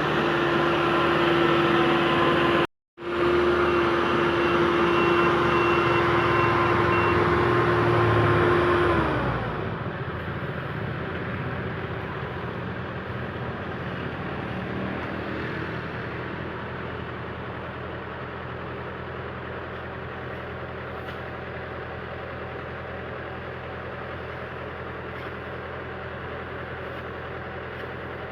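Yanmar YH850 combine harvester's diesel engine and machinery running at working speed with a steady whine, cut by a brief gap about three seconds in. About nine seconds in the whine winds down and the machine settles to a quieter, lower idle.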